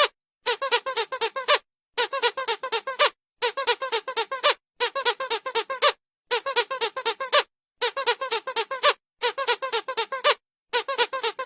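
Squeaky dog toy squeezed rapidly, several high squeaks a second, in bursts of about a second with short silent gaps between them, repeated all through.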